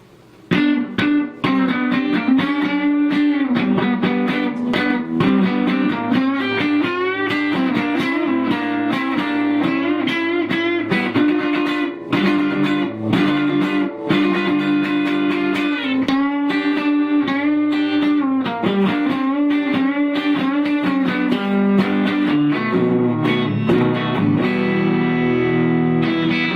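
Electric guitar riff played on a Chickenbacker 315, an AliExpress copy of a Rickenbacker, starting about half a second in. The player finds it close to the riff's sound but short on volume because its pickups are weaker than a real Rickenbacker's.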